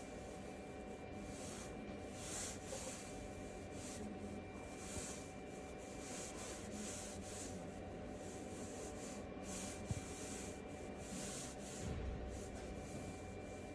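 Faint, irregular soft taps and brushes of a fingertip on a tablet's glass touchscreen while typing on the on-screen keyboard, over a steady faint electrical hum.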